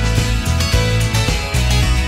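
Background music with a bass line moving through short notes.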